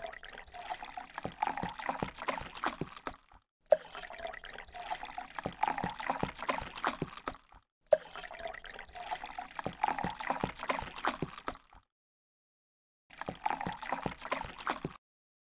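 Water splashing and sloshing as a penguin swims. The sound comes in four separate stretches broken by short silences, and each stretch begins with a sharp click.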